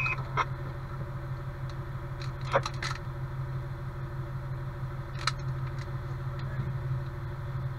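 Fire engine's diesel engine idling steadily, heard from inside the cab. A few short clicks and taps come about half a second in, around two and a half to three seconds in, and again about five seconds in.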